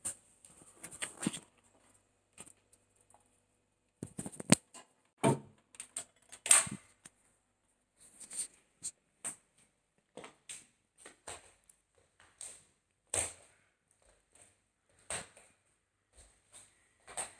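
A string of irregular, sharp clicks and taps close to the microphone, with a cluster of louder ones between about four and seven seconds in, then spaced out roughly one a second.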